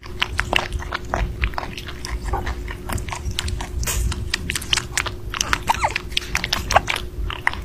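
A rabbit chewing food held in its mouth: rapid, close, irregular crunching bites and clicks of its teeth, several a second, over a steady low hum.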